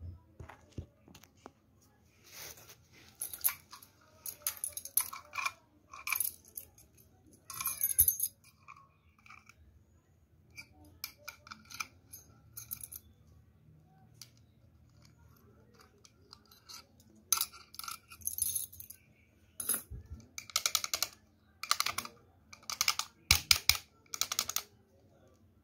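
A padlock and a ring of keys jingling and clicking as they are handled and the lock is worked with its key. The metallic clicks come in irregular bursts, with a quieter spell in the middle.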